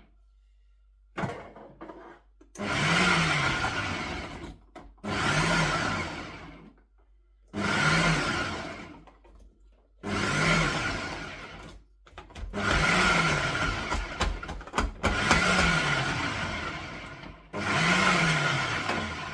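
Ninja food processor pulsing while chopping okra: about eight short bursts, the motor rising in pitch as it spins up and falling as it winds down after each press, with brief pauses between.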